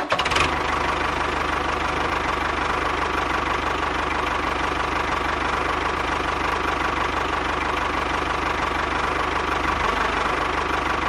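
A small motor running steadily, with a faint steady whine over an engine-like drone.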